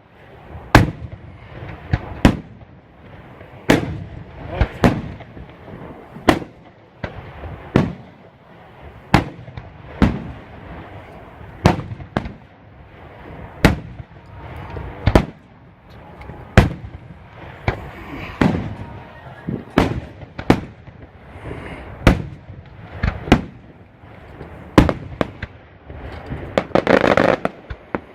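Aerial firework shells bursting one after another, sharp loud bangs about once a second, each with a short rumbling echo. Near the end the bursts turn into a dense, rapid crackle.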